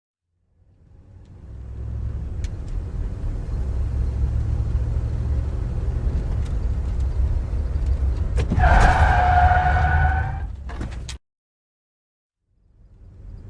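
A car's steady low engine and road rumble fades in and builds over the first couple of seconds. About eight and a half seconds in, tyres squeal in a skid for about a second and a half. Then the sound cuts off abruptly.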